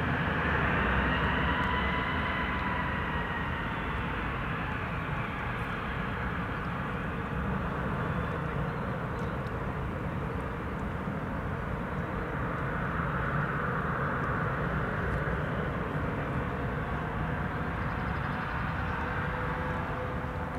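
Jet engines of an Airbus airliner running at low power on the ground: a steady rush with a high whine that dips slightly in pitch early on and swells again about two-thirds of the way through.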